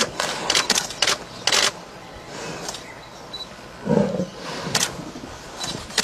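Lion snarling in a run of short, harsh bursts during a fight with a Cape buffalo, then a deeper growl about four seconds in.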